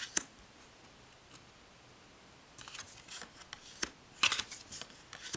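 Oracle cards being turned over and slid off a deck onto a cloth-covered table: a sharp card click just after the start, then scattered soft clicks and scrapes of card stock about halfway through and again around four seconds in.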